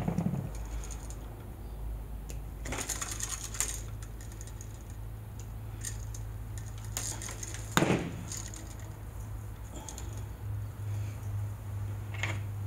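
Small metallic clicks and rattles of wall switches and their metal mounting straps being handled and wires worked with wire strippers, coming in short clusters, with one louder knock about eight seconds in. A steady low hum runs underneath.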